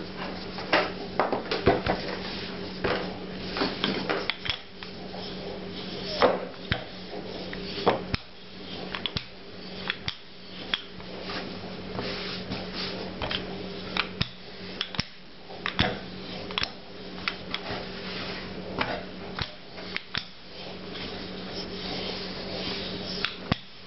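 A hand scraper scrapes and taps across a floured worktop, with frequent light knocks and clatter, and a wooden rolling pin rolls over pastry dough near the end. A steady low hum runs underneath.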